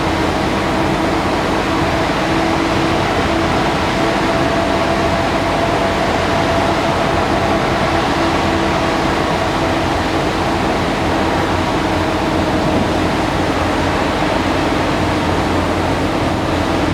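Steady mechanical drone of the ferry MV Salish Heron's engines and machinery as it gets under way, with two low tones held over a constant rushing noise.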